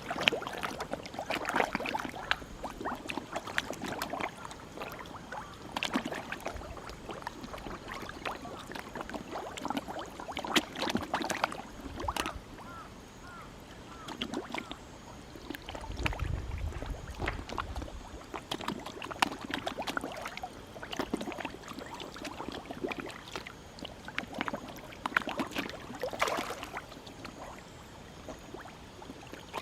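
Many koi feeding at the water surface, an irregular patter of small splashes and smacking slurps as they take food. A brief low rumble about halfway through.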